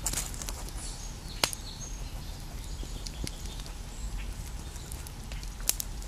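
Wood campfire crackling, with scattered sharp pops, two of them loud, over a low steady rumble.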